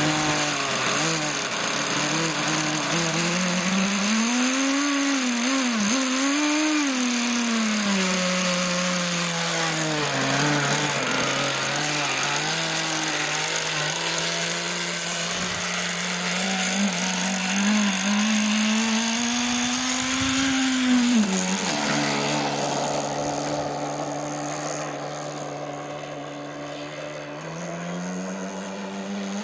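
OS 40 VRM 6.5cc two-stroke glow engine with a tuned pipe in an RC hydroplane, running with its pitch rising and falling several times as the throttle is opened and closed. About two-thirds of the way through it settles to a steady lower note, then climbs again near the end as the boat speeds up.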